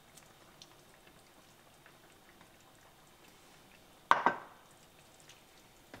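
Faint spatula sounds as chopped tomato goes into a skillet of dal and is stirred in, with small soft ticks. About four seconds in comes one sharp clank of kitchenware, ringing briefly.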